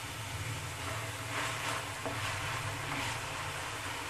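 Small pieces of raw chicken sizzling in hot oil in a pan, a soft steady frying hiss that swells a few times.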